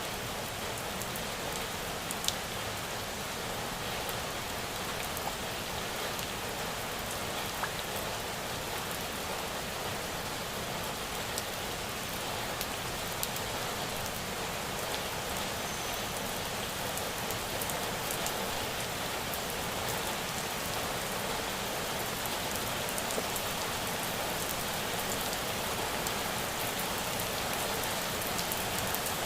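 Steady rain falling, an even hiss with scattered sharper drop ticks on a surface.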